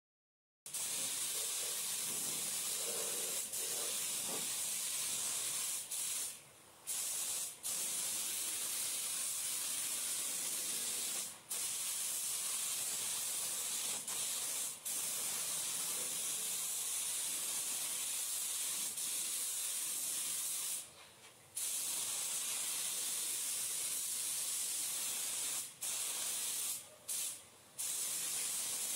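Compressed-air gravity-feed paint spray gun hissing steadily as it atomizes paint onto a car body, with several short breaks where the trigger is let off between passes.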